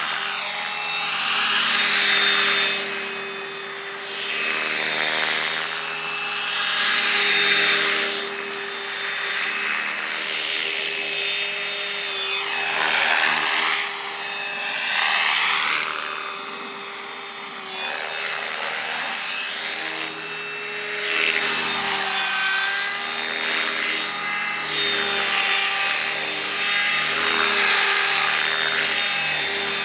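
Electric Stretch Protos RC helicopter flying 3D aerobatics: a steady motor and gear whine with the rotor blades swishing, swelling and fading every few seconds and sweeping up and down in pitch as it moves about and passes.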